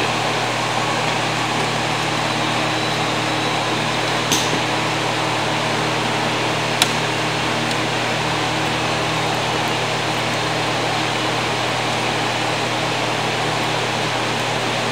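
Steady motor hum and whir, even throughout, with a couple of sharp clicks about four and seven seconds in.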